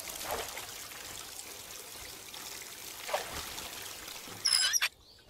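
Water splashing and trickling as someone washes his face, a steady trickle with two louder splashes. Near the end comes a brief loud high-pitched sound, then the sound cuts off suddenly.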